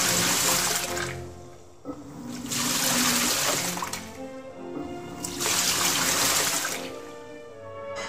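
Hitachi BeatWash 8 kg washing machine churning its wash water in three bursts of rushing, splashing water a few seconds apart, the rhythm of the wash cycle's agitation. Background music plays underneath.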